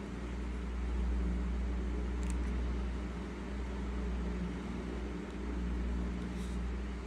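A steady low hum with a constant hiss over it, with two brief faint high ticks about two seconds and six and a half seconds in.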